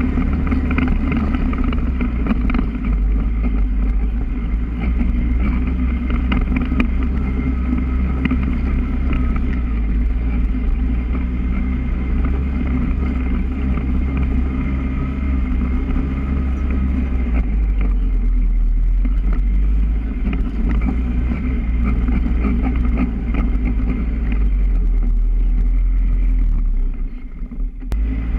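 Polaris ATV engine running steadily as the quad is ridden over rough ground, its note dipping briefly near the end before picking back up.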